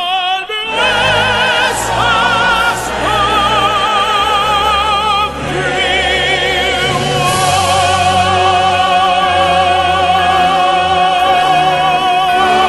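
Music: operatic singing of the song's closing passage, long held notes with strong vibrato.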